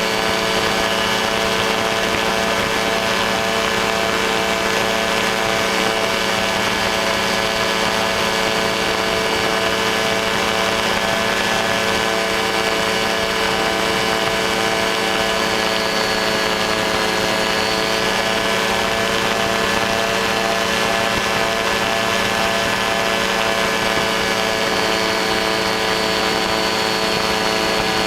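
Ultralight aircraft engine and propeller running steadily at constant power, a continuous drone with no change in pitch.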